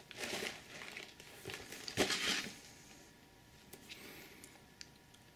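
Plastic-wrapped cardboard model-kit box being handled and turned over, the wrap crinkling in short rustles, with one light knock about two seconds in.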